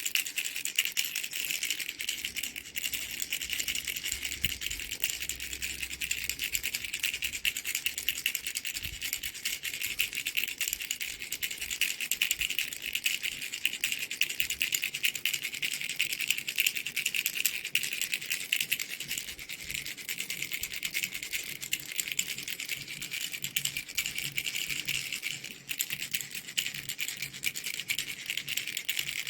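Mango-shaped baby rattle toy shaken continuously, giving a fast, dense, high-pitched rattle, with a brief lull about 25 seconds in.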